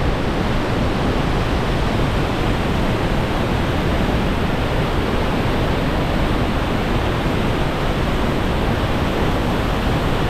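Steady, loud rush of water from Niagara Falls, a continuous even roar with no breaks.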